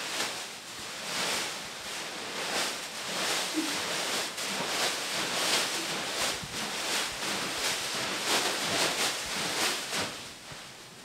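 A mass of thin plastic bags rustling and crinkling in quick, repeated bursts as they are grabbed, crushed and flung about by people moving through them; the rustling dies down near the end.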